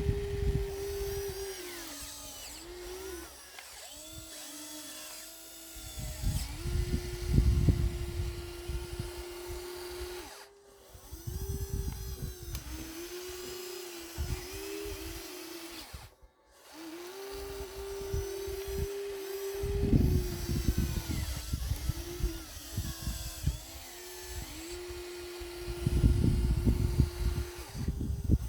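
Small electric motors of radio-controlled construction machines whining steadily, the pitch sagging and recovering again and again as they take load. Repeated bursts of low rumbling noise come through the whine.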